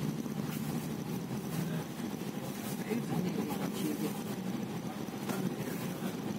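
Steady low engine hum and road noise inside the upper deck of a moving double-decker bus, with a few faint rattles.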